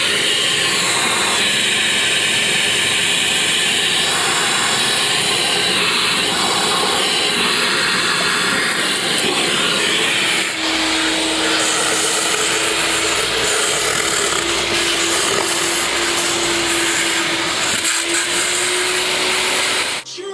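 Wet and dry vacuum cleaner running steadily. About halfway through its sound changes: a deeper rumble and a steady hum come in.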